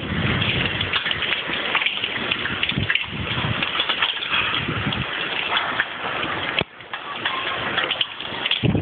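Hailstorm: hail and rain pelting hard ground in a dense, steady patter of sharp ticks, with gusts of wind rumbling on the microphone.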